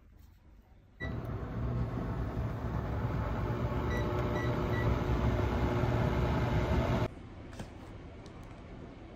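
Induction cooktop heating a stainless kettle of water: a steady hum and rush, with a beep as it starts and a short run of three or four control beeps about four seconds in. It starts suddenly about a second in and cuts off about seven seconds in.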